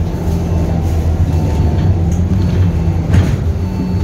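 A public-transport vehicle heard from inside its cabin: a steady low motor hum with running noise that shifts slightly in pitch, and a brief hiss about three seconds in.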